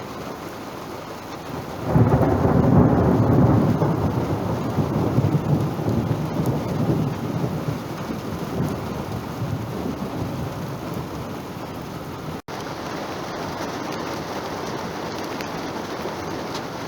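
Steady rain with a loud peal of thunder breaking about two seconds in, then rolling on and fading slowly over several seconds.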